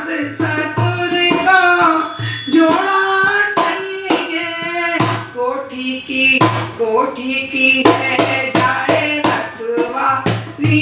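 A woman singing a Hindi devotional bhajan while accompanying herself on a dholak, a two-headed barrel drum. Her hand strokes on the heads mix sharp slaps with deep bass strokes in a steady rhythm under her voice.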